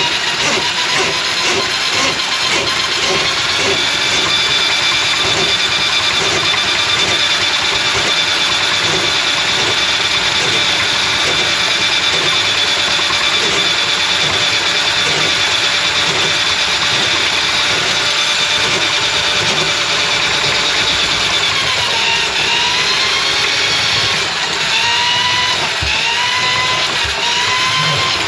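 Electric drain-cleaning machine running with a steady motor whine. In the last several seconds the pitch dips and recovers again and again, the motor bogging under load as the cable works against the grease clog in the drain line.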